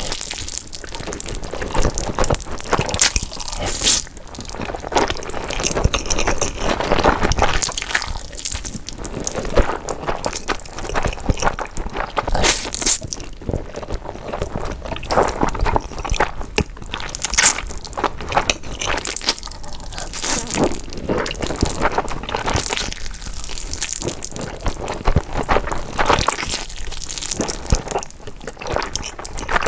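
Close-miked slurping and chewing of saucy Samyang Nuclear Buldak stir-fried noodles: wet slurps and smacks with many small clicks, in a steady stream.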